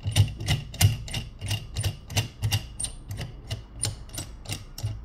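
Suction-cup adjustment screw of a phone screen-separator clamp being turned by hand, giving a quick, even run of small metallic clicks, about four or five a second, that stops near the end.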